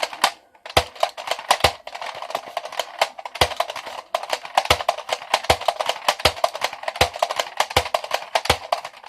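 Music with a loud, sharp drum beat of a bit more than one hit a second, with quicker hits between, over a dense continuous haze.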